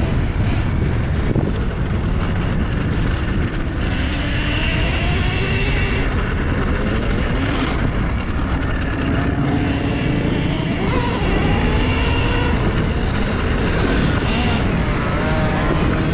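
Loud wind rumble buffeting a helmet camera's microphone while riding an electric Husqvarna mini dirt bike, with the motor's thin whine rising and falling in pitch as the throttle and speed change.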